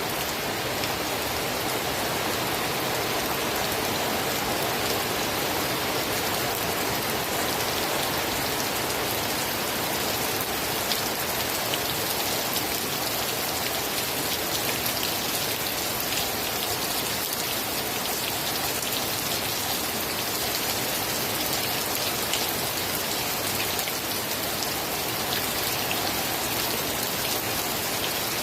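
Steady rain falling, with fine drops pattering on a surface.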